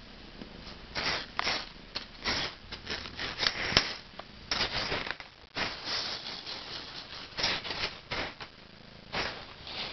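Jim Dunlop mini maraca rattling in short, irregular bursts of shaking as a kitten plays with it.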